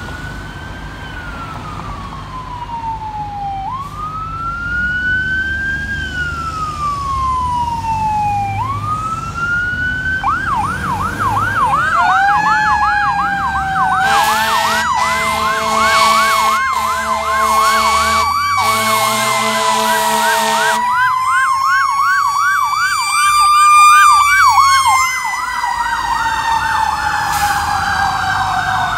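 Fire truck responding with its electronic siren: a slow up-and-down wail, then a fast yelp from about ten seconds in with the wail still going under it. Air horn blasts sound in the middle for several seconds, with two short breaks, and the sirens are loudest as the truck goes by near the end.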